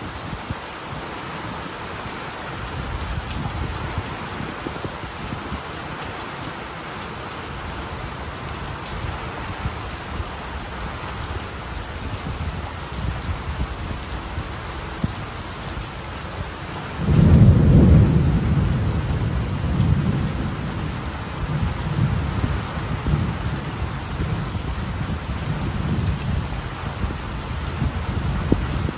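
Steady rain falling during a tropical wet-season thunderstorm. A little past halfway, thunder breaks in suddenly and loudest, then rolls on in several fading waves of low rumble.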